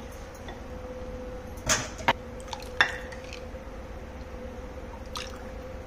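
A few light knocks and clinks of a wooden spoon and a plastic scoop against a glass bowl as thin barley rabdi is stirred and ladled out. The knocks come scattered, over a faint steady hum.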